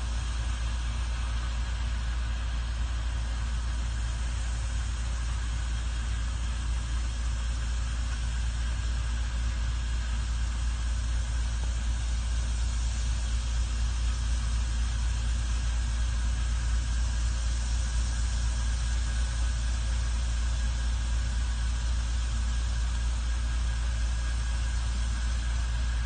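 Combine harvester and tractor engines running steadily while the combine unloads grain into a tractor-drawn trailer: a constant drone with a deep rumble and a faint high whine.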